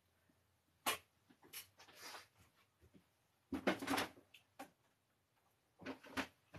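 Scattered knocks, bumps and rustling of someone moving about and handling things in a small room, with the loudest cluster about halfway through and another near the end.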